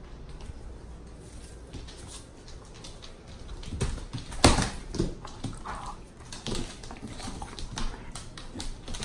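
A Doberman and a smaller tan dog playing tug-of-war with a rope toy, making dog play noises from about three and a half seconds in, with a loud sharp sound about four and a half seconds in.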